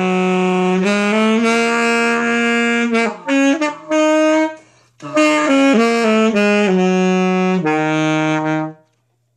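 Saxophone playing two blues-scale phrases of held notes that step up and down, with a short gap between them. The tone is very deep and shaky, an effect the player says is not really vibrato and cannot name.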